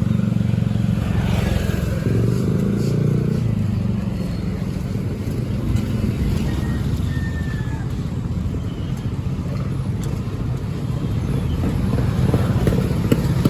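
Motor vehicle engines and street traffic: a low engine drone for the first few seconds that eases off, then a steady traffic rumble.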